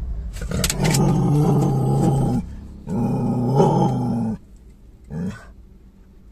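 A dog growls inside a car cabin, worked up to fight another dog it has spotted outside. There are two long spells of growling, each about one and a half to two seconds, and a short one near the end.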